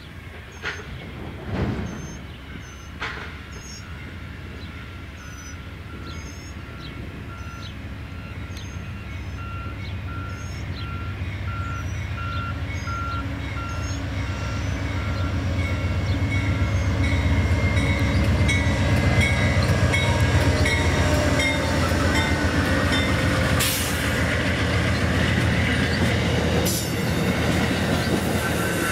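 Amtrak GE Genesis P42 diesel locomotive approaching and passing with its passenger train: the low diesel rumble builds to its loudest as the locomotive goes by, then the cars' wheels clatter over the rails. In the first half a bell dings steadily about twice a second.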